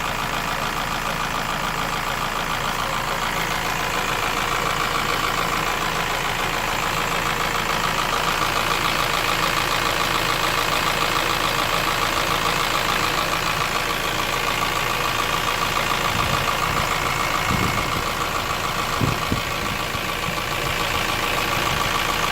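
Honda S2000 AP1's F20C four-cylinder engine running steadily with a rapid, repetitive knock, which the owner suspects is piston slap. The engine gets a little louder in the middle.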